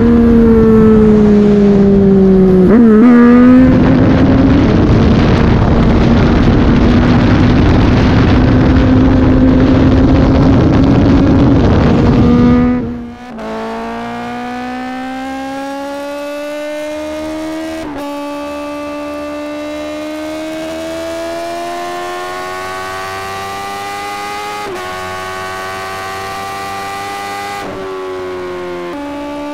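Motorcycle engine at speed heard from the rider's position, loud and half buried in wind noise, its pitch falling at first. After a cut it becomes a sport motorcycle's engine at high speed, quieter and clearer, its pitch climbing slowly and dipping briefly a few times.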